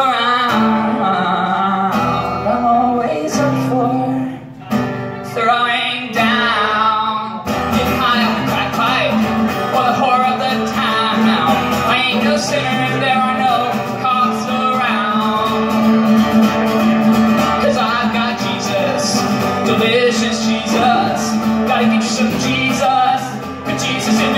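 A man singing live while strumming an acoustic guitar.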